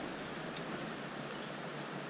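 Creek water running: a steady, even hiss with no distinct events.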